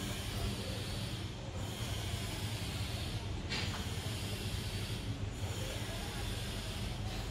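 Household plastic comb drawn through a dog's medium-length coat, a soft brushing hiss that swells and fades about every two seconds, over a steady low hum.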